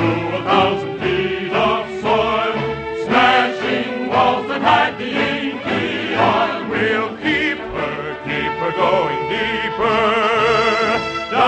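Choir and orchestra performing a big chorus of a 1950s show tune, ending on a long held note sung with vibrato near the end.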